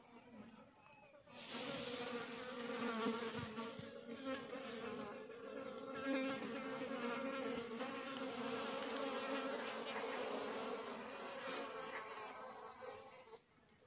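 A flying insect buzzing close to the microphone: a steady low drone that starts a little over a second in, wavers in loudness, and fades out near the end.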